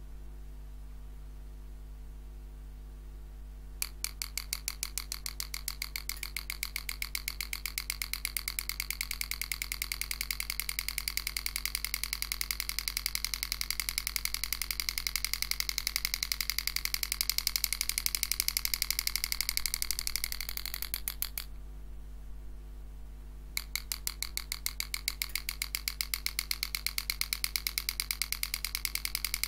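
Super EZ graver handpiece striking rapidly as its 98-degree carbide cutter engraves 304 stainless steel: a fast, even stream of taps that starts about four seconds in, stops for about two seconds later on, then resumes. A steady low hum sits underneath.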